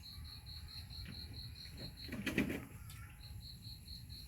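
Steady insect chirping, an even high pulse at about four a second that breaks off briefly near three seconds in. A short louder sound comes just over two seconds in.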